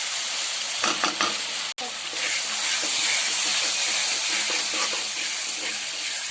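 Ginger-garlic paste and onion-spice gravy sizzling in hot oil in a pot while being stirred, with a few knocks of the spoon about a second in. The sizzle gets louder after about two seconds.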